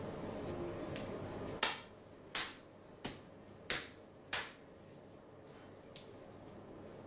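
Five sharp hand slaps on bare skin in an even rhythm, about two-thirds of a second apart, percussive strikes in a massage, after a stretch of steady rubbing. A fainter single click follows near the end.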